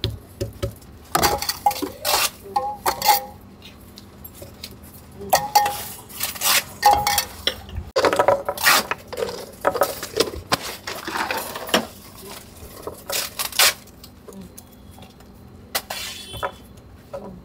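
A steel spoon clinking and scraping against steel pots as chutney is ladled out: a run of irregular metallic clinks, some with a short ring.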